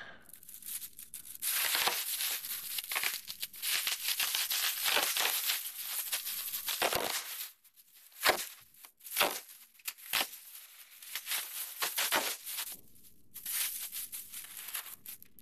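Metallized foil insulation liner and plastic packaging crinkling and tearing as they are pulled open by hand. A long stretch of continuous crinkling gives way, after a short pause, to a few separate sharp crackles.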